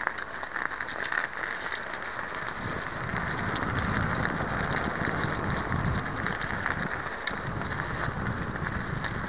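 Steady crackling hiss of a vehicle running over crusty snow, with a low rumble that grows louder about three seconds in.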